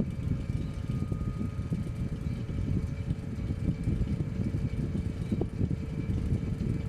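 Eletromar Westinghouse electric fan running steadily: a rough, fluttering rush of air with a faint steady hum above it.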